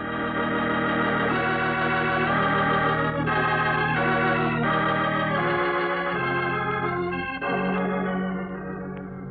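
Organ music bridge: sustained chords moving from one to the next about every second and fading down near the end, marking the close of a scene in an old-time radio drama.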